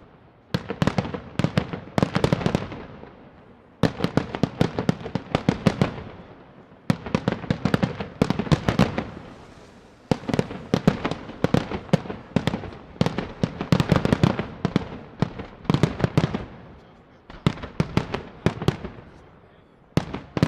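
Aerial firework shells bursting in a professional display: clusters of rapid sharp bangs, each volley a second or two long, following one another every couple of seconds.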